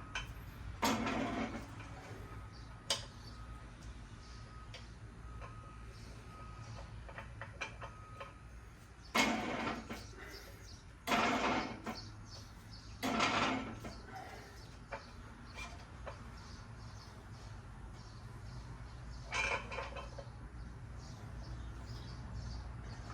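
A chicken calling: about five short calls of roughly a second each, scattered through the stretch, over a low steady hum. There is a single sharp click about three seconds in.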